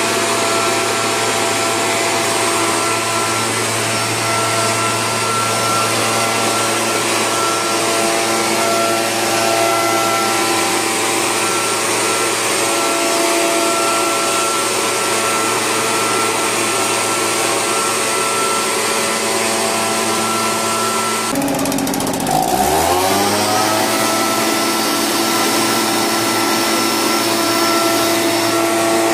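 Oleo-Mac/Cifarelli MB90 backpack power mist blower running steadily at full throttle: a two-stroke engine with its blower fan, misting disinfectant. About three quarters of the way through, the engine note drops abruptly and climbs back to full speed over a couple of seconds.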